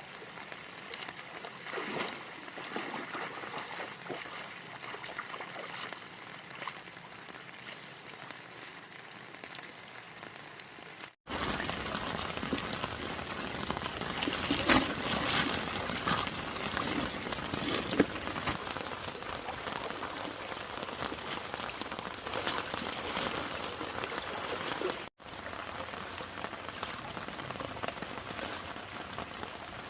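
Heavy rain falling steadily, louder after a cut about eleven seconds in, with a few sharp knocks among the drops.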